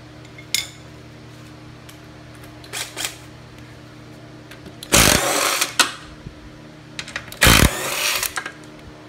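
Cordless impact wrench hammering on the engine mounting bolts of a lawnmower deck in two bursts of about a second each, breaking loose bolts soaked in penetrating oil. A few light clicks and knocks come before the bursts as the socket is fitted.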